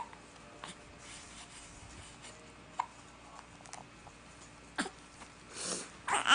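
A newborn baby hiccuping: about four short, sharp hiccups spaced a second or more apart. Near the end the baby starts to cry out.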